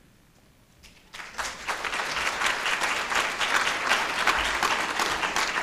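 Audience applauding in a large hall: after about a second of hush, many hands start clapping together and keep up a steady, even applause.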